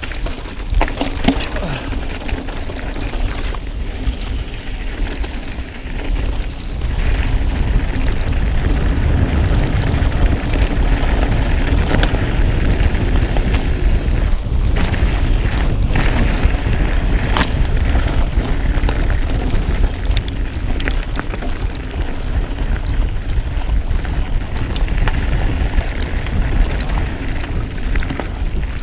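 Mountain bike riding over a rough dirt and rock trail: wind rumbling on the camera microphone, with frequent rattles and knocks from the bike.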